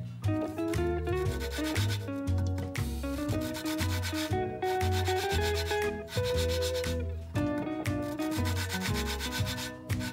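Valve being hand-lapped into its seat in the aluminium cylinder head of a 2001 Honda Accord V6: a lapping stick spun back and forth, the valve face rubbing gritty against the seat in strokes. Background guitar music plays under it.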